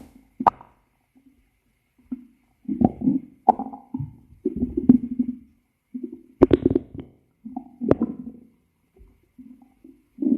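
A person's stomach growling: a string of irregular gurgles and short rumbles with brief pauses between them, and a few sharp pops.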